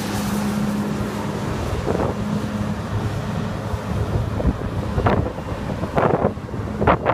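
Fiat Hitachi FH330LC-3 excavator's diesel engine idling with a steady low hum that fades after about three seconds, with wind buffeting the microphone. From about five seconds in, footsteps crunch on gravel.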